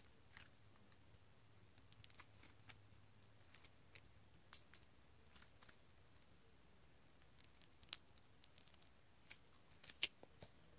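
Near silence with faint, scattered sticky clicks and pops as slime is stretched and squeezed between the hands, a few sharper ones near the end.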